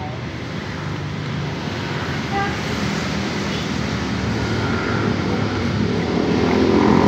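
Roadside traffic: a passing motor vehicle's engine growing steadily louder as it comes closer, loudest near the end.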